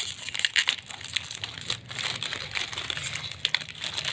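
Foil-lined plastic snack packet crinkling as hands pull and spread its torn-open top: a run of irregular sharp crackles.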